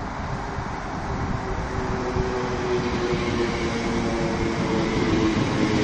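First Capital Connect Class 319 electric multiple unit arriving at the platform: a rumble of wheels on the rails with a steady motor whine, growing louder as the train draws alongside.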